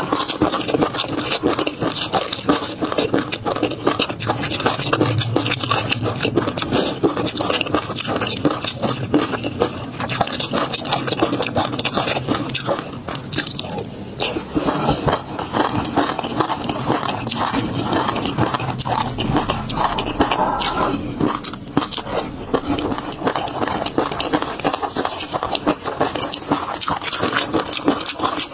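Close-miked mouth sounds of eating peanut sauce: a steady, dense run of wet chewing clicks and smacks.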